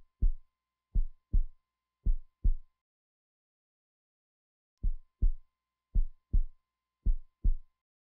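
Heartbeat sound effect: low double thumps, lub-dub, three beats about a second apart, a pause of about two seconds, then three more beats. A faint steady high tone sounds under each group of beats.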